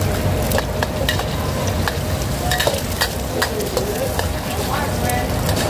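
An egg frying in hot oil in a steel wok, sizzling steadily, while a metal wok spatula scrapes and clacks against the pan many times.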